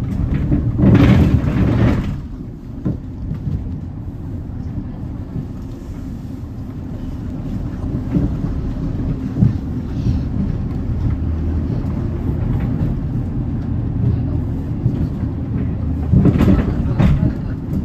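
Hyundai Green City diesel bus engine running steadily as the bus drives, heard from inside the bus. A loud rushing hiss comes about a second in and lasts about a second, and shorter ones come near the end.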